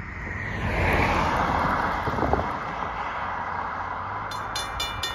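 A car passes close by, its tyre and engine noise swelling in the first second and then fading away. About four seconds in, the railroad crossing bell starts ringing, about four strikes a second, as the crossing warning signals activate for an approaching train.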